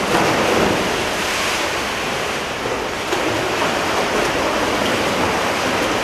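Water splashing as several swimmers dive into a pool and swim front crawl. It starts suddenly and is loudest in the first second, at the dive entries, then carries on as steady churning from their strokes and kicks.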